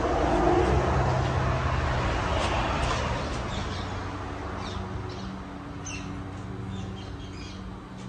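A Casablanca Delta II ceiling fan's K55 motor hums steadily. Over the first few seconds a passing vehicle's noise swells and fades, and birds chirp in the second half.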